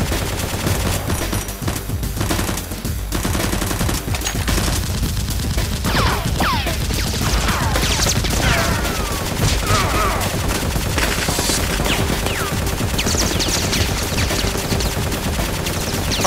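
Dubbed-in movie-style automatic gunfire sound effects: rapid, continuous firing with no break, with several falling whines laid over it from about a third of the way in.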